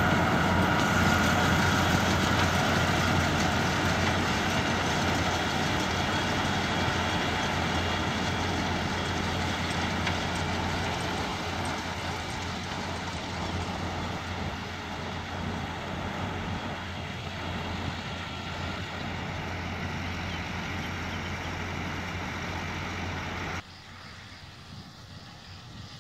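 Fiat 130-90 Turbo tractor's turbocharged diesel engine running under load while driving a Claas Variant 180 round baler through hay, fading steadily as the rig moves away. The sound drops off sharply a couple of seconds before the end.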